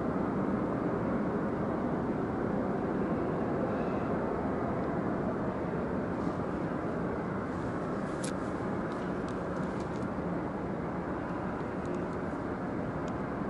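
Steady low outdoor rumble, with a few light clicks in the later part.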